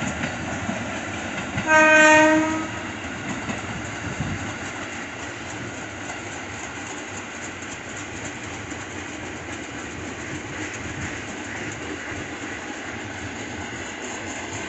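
A commuter electric train sounds its horn once, a single steady note lasting about a second, then runs past with a steady rumble and clatter of wheels on the rails.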